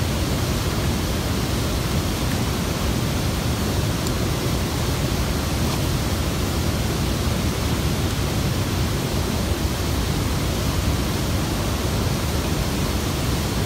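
Steady rush of water pouring over the Varick Dam spillway and through the white-water rapids below it, an even noise heaviest in the low end with no breaks.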